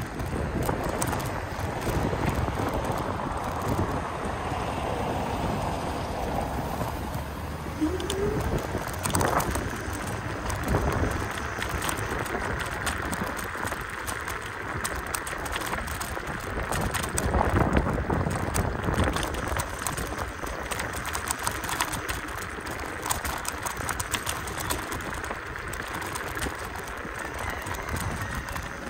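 Kaabo Mantis Pro electric scooter riding over cobblestone paving: a steady rumble from the tyres with frequent rattling clicks from the jolts over the stones.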